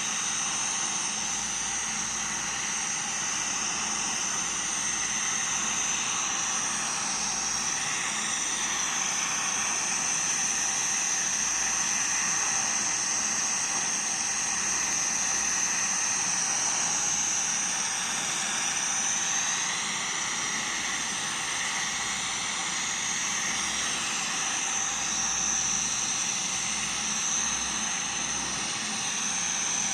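Electric welding arc burning steadily on a pipe joint welded in the 5G position, a continuous even hiss.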